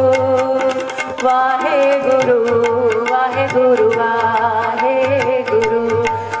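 A woman singing a Gurbani hymn in kirtan style, her voice wavering through ornamented held notes, over sustained instrumental tones and a steady drum rhythm.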